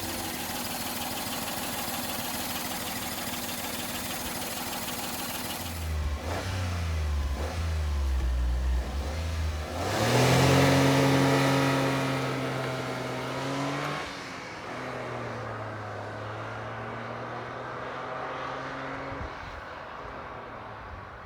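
Daihatsu Move's 1.0-litre three-cylinder engine launching under hard acceleration. After a steady hiss, the engine note climbs about six seconds in and is loudest and steady from about ten seconds. Its pitch drops near fourteen seconds, and it runs on more quietly and fades near the end.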